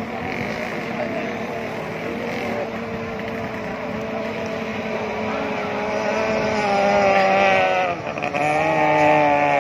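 A racing motorboat's engine is running hard with a whine that grows louder, its pitch climbing steadily. About eight seconds in it drops briefly, then picks up again.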